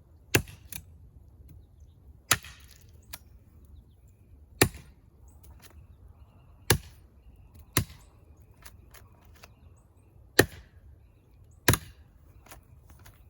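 Brush knife with a 13-inch 8670 tool-steel blade chopping into a small tree trunk: seven sharp strikes spaced a second or two apart, slow and unhurried, with faint ticks between them.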